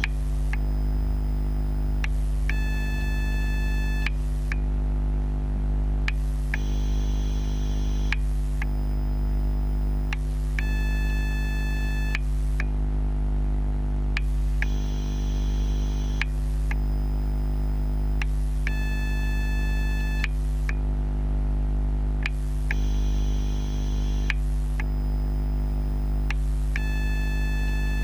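Electrical noise of a TGX12 Ni-MH/NiCd battery charger charging ten AA cells, picked up by contact microphones: a steady low hum with a higher whine that changes pattern about every two seconds, each change marked by a small click, in a cycle that repeats about every eight seconds. This is the strange noise the charger makes while charging.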